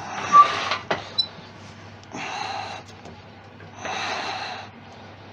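Three short scraping cuts, each under a second, as a wide turning tool is pushed across the face of a spinning wooden jam chuck to flatten it, over the steady hum of a Laguna 1836 wood lathe.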